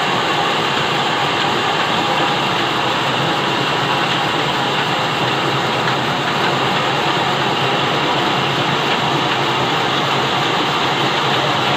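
Large engine-driven band sawmill running steadily, its blade sawing lengthwise through a log on the carriage, together with the hum of the old stationary engine that drives it.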